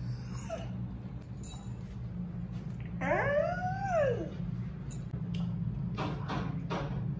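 A Doberman yawning out loud: about three seconds in, a whining yawn rises and falls in pitch for just over a second as he stretches. Near the end comes a second, breathier yawn.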